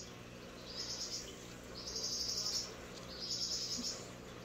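A Quaker parrot (monk parakeet) makes a run of short, high, raspy bursts, a little over a second apart, while being cuddled.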